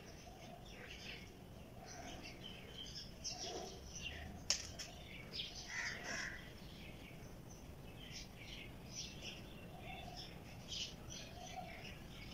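Birds chirping faintly, a scatter of short high calls, with one sharp click about four and a half seconds in.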